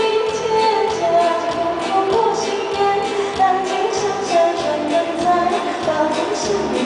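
Live band music: a woman singing a melody, accompanied by violin, keyboard and a round-bodied Chinese lute.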